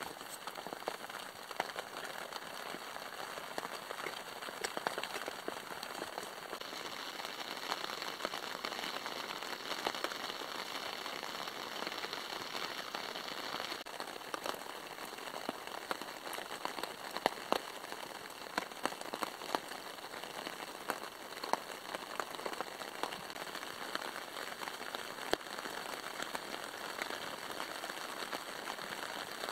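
Steady rain pattering on a tarp overhead: a dense hiss of drops with frequent single, sharper drop hits.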